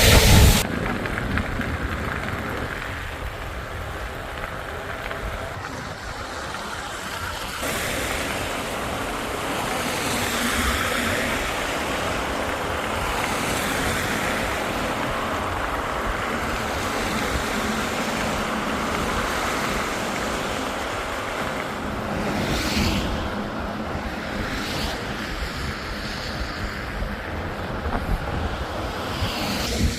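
Wind rushing over the microphone with road noise from traffic, steady throughout, with a sharp loud swell right at the start and a smaller one about two-thirds of the way through.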